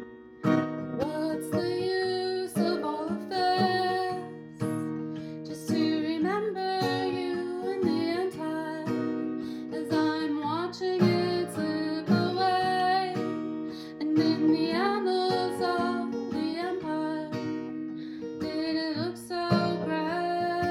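Acoustic guitar strummed in a steady rhythm, with a woman's voice singing a melody over it.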